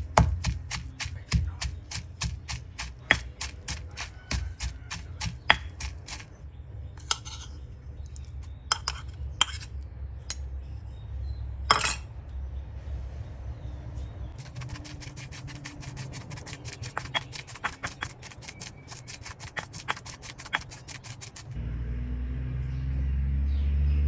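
Rapid clicking and clinking of kitchen utensils in quick runs of strikes, over a low hum. A louder low rumble comes in near the end.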